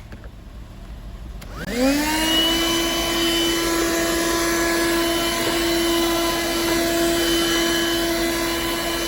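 Car vacuum cleaner switched on about a second and a half in: its motor spins up in a quick rising whine, then runs steadily with a rushing hiss of air as the nozzle sucks up grass particles.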